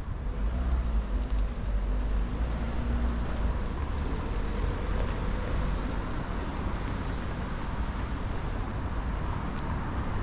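Street traffic: a motor vehicle's engine rumbles close by for the first few seconds, then eases into steady road-traffic noise.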